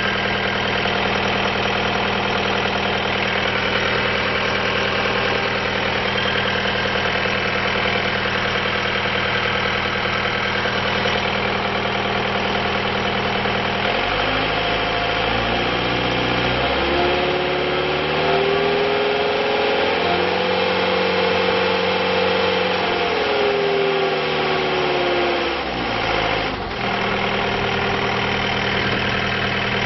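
A John Deere 318D skid steer's diesel engine idles steadily. About halfway through, the throttle is brought up and the engine revs up over a few seconds and holds at high speed. Near the end it winds back down to idle.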